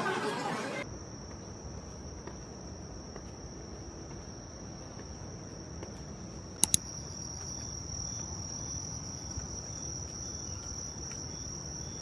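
Insects, taken for crickets, singing in one steady high-pitched drone, with a fainter pulsing chirp beneath it. Crowd chatter cuts off within the first second, and a pair of sharp clicks, the loudest sound, comes about two-thirds of the way through.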